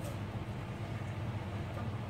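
A steady low hum with a faint hiss, and no distinct knocks or clicks.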